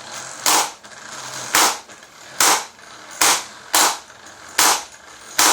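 Kawasaki 12V DC impact wrench hammering on a lug nut with a hard, sharp blow about once a second over the running motor. The nut isn't turning; the owner later finds he had the wrench set to the wrong direction.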